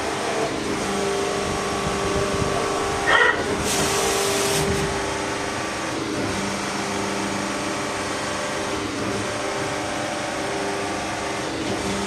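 CNC turning machine running with a steady hum, while a part is loaded into the chuck by hand. About three seconds in there is a sharp metallic knock, followed by a hiss lasting about a second.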